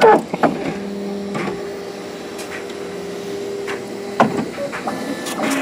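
Bambu Lab P1S 3D printer's motors running with a steady hum as the printer starts a filament-load cycle. The hum holds for a few seconds, there is a click about four seconds in, and a different, slightly higher hum starts near the end.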